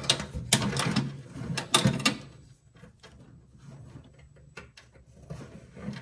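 Clicks and scrapes of a wire's metal spade connector being pushed onto a terminal of a VW Beetle's fuse block, with the wires rustling. Most of the clicking falls in the first two seconds, followed by fainter scattered ticks.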